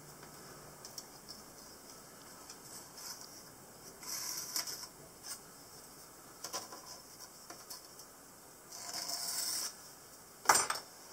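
Pencil scratching as lines are marked on soft insulating firebrick along a steel rule, in two short bursts with small ticks of the tools being handled. A sharp clack near the end, the loudest sound, as the metal rule is put down on the workbench.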